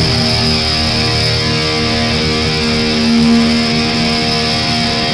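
Hardcore metal band playing live, heard loud from the crowd. The heavy low-end playing fades about a second in, leaving distorted electric guitars holding a steady ringing chord.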